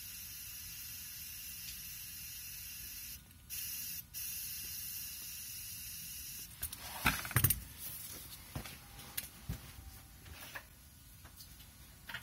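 Compressed air at about two bar hissing from an air blow gun pressed into an engine's oil drain hole to blow the old oil out of the sump. The hiss drops out briefly twice, about three and four seconds in, then cuts off about six and a half seconds in and is followed by a few sharp knocks and small clicks.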